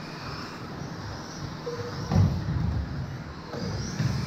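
Electric 1/10 2WD RC buggies racing on a carpet track: a continuous mix of high motor whine and tyre rumble on carpet, with a loud thud about two seconds in and a smaller one near the end.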